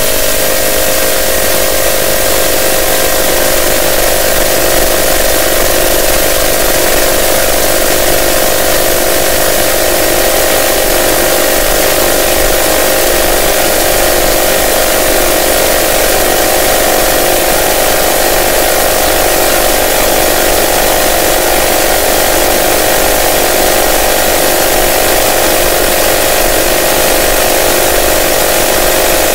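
Electronic noise-music drone: a loud, unchanging wall of hiss with a cluster of held middle-pitched tones and a low hum beneath.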